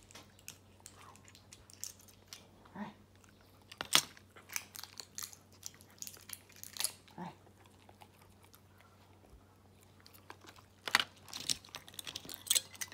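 Akita dogs chewing and crunching treats, heard as scattered sharp crunches and clicks that come in clusters, with some crinkling.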